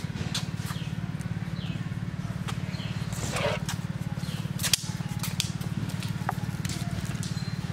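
A steady low mechanical hum with a fast, even pulse, like a small machine running, with scattered light clicks and a few short high chirps over it.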